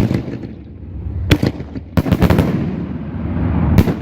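Consumer aerial fireworks bursting: a sharp report about a second in, a quick cluster of cracks around two seconds, and another report near the end, over a low rumble.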